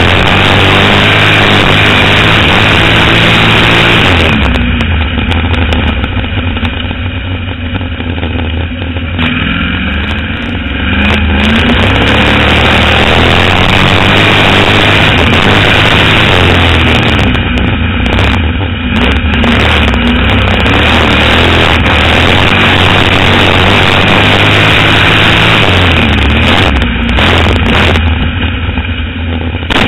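305 sprint car V8 engine at racing speed, heard on board from the cockpit. It eases off for several seconds about four seconds in, climbs back up in revs and runs hard again, with short lifts of the throttle later on.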